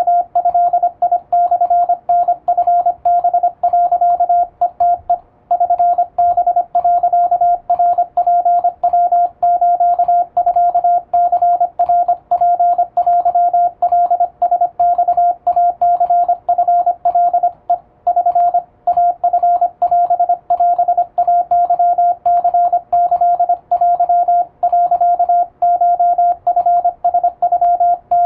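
Japanese wabun Morse code sent on an electronic keyer: a single steady sidetone keyed on and off rapidly in dots and dashes, fairly fast. There are longer pauses about five seconds in and again around eighteen seconds in.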